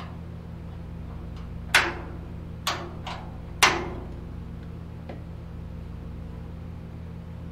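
Truck door latch and lock mechanism worked by hand, giving a few sharp clicks between about two and four seconds in, the first and last loudest, with a faint one a second later. A steady low hum runs underneath.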